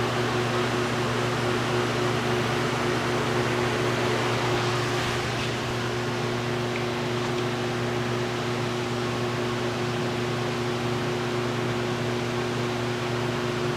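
Steady hum of a running electric motor, a constant low drone with an even hiss over it.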